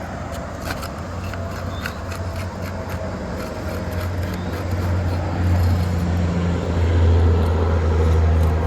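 Light clicks and scrapes of a tool working under asphalt roof shingles to break their seal, over a low steady rumble that grows louder about halfway through.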